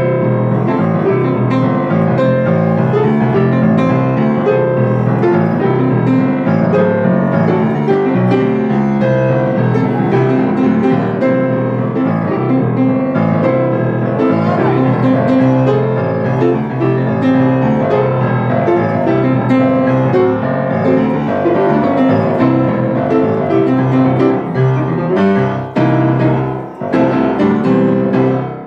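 Solo blues piano on a grand piano, a steady low bass pattern under busier notes in the treble. Near the end the playing breaks into separate chords and stops.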